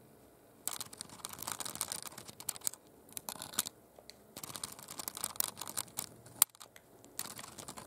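A budgerigar's beak nibbling and tapping at the camera right against the microphone: a quick, uneven run of soft clicks and scratchy crackles, with one sharper click about six and a half seconds in.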